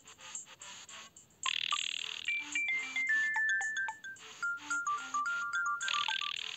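Siemens Gigaset C595 cordless phone handset playing one of its built-in ringtone melodies: short electronic notes over a lower line. It gets louder about a second and a half in, where a run of notes steps downward in pitch.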